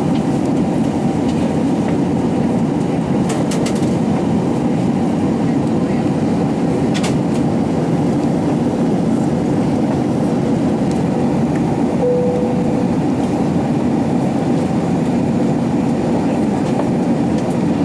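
Steady cabin noise inside an Airbus A380 in flight: an even, deep roar of engines and airflow, with a few faint clicks.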